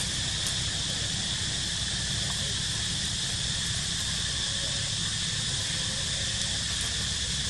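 Steady outdoor ambience: a continuous high drone of insects with a low rumble beneath, unchanging throughout.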